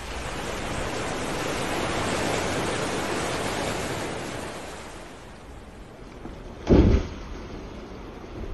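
A humpback whale breaching: a rushing noise of sea and wind swells over the first few seconds and fades, then about seven seconds in comes the heavy splash of the whale falling back onto the surface, short and much the loudest sound.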